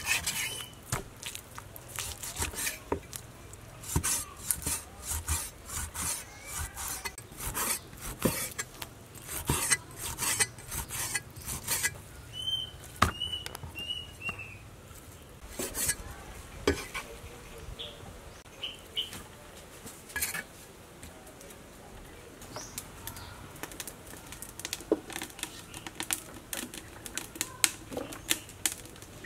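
Cleaver cutting pork on a wooden chopping board: uneven runs of sharp knocks and taps.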